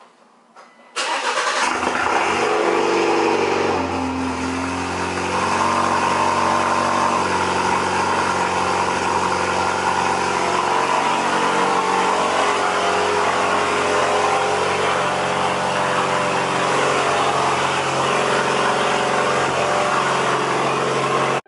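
Alfa Romeo Giulia's tuned 2.0-litre turbocharged four-cylinder cold start, heard at the exhaust tips. It fires about a second in, flares high for a few seconds, then settles into a steady fast cold idle.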